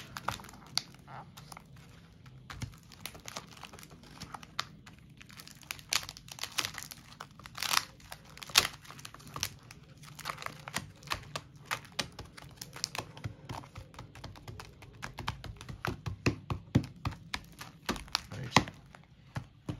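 Clear plastic coin-album sleeves crinkling and 50p coins clicking as they are handled and slid in and out of the pockets: a run of irregular small clicks and rustles, busiest in the middle and near the end.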